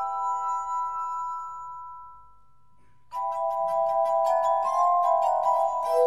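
Glass harp: rows of stemmed glasses sung by fingertips rubbing their rims. A held chord fades away, there is a brief pause, and about three seconds in a fuller, livelier passage starts with several ringing notes sounding together and quick new notes over them.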